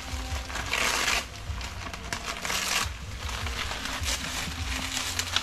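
Banana leaves rustling and crinkling as they are handled, in a few short bursts about half a second and two and a half seconds in, over a low rumble.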